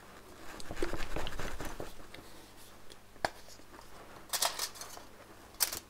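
Plastic bottle of chalk acrylic paint being handled and its flip-top cap snapped open: soft rustling and small clicks, then a few sharper clicks, one about three seconds in and one near the end.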